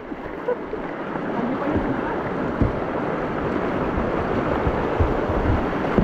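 River rapids rushing past: a steady, even wash of water that grows a little louder over the first second, with occasional low thumps.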